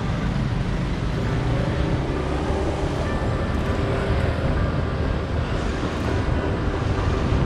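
Motorcycle engine running steadily at low speed, with wind and road noise on the camera microphone.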